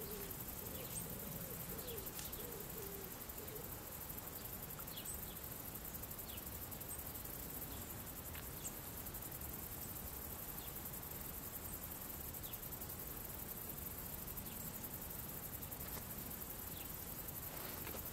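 Natural field ambience: insects making a steady high chirring, with short scattered bird chirps throughout and a few low wavering notes in the first few seconds.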